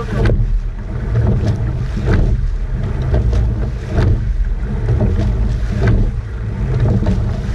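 Coxed rowing eight at race pace: the oars clunk in their oarlocks and the blades splash with each stroke, about one stroke every two seconds. Under it runs a steady low rush of water and wind on the microphone.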